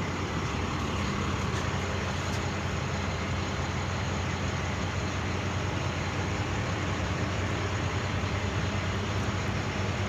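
Steady low vehicle rumble with a hiss over it, unchanging.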